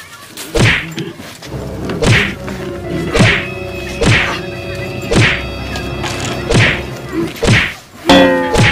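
Sticks whacking down on a filled sack, about eight blows at roughly one a second, each a sharp thwack. Background music with held notes plays underneath, and a falling tone sounds near the end.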